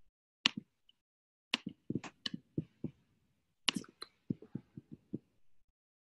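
Computer mouse clicking: about twenty short, sharp clicks at an irregular pace, with a quicker run of softer clicks about four to five seconds in.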